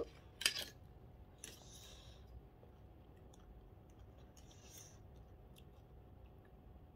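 Faint eating sounds: a metal fork clicks twice against the plate right at the start, then scrapes briefly twice, about a second and a half in and again near five seconds, as salad is piled onto a leaf for a wrap, with a few light ticks after.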